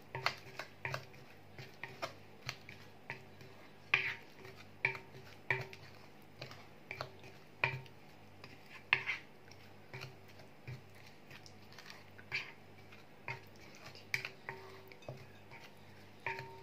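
Spatula stirring a wet oil-and-spice chermoula marinade in a glass bowl: irregular light knocks and scrapes against the glass, about one or two a second, some with a brief ring.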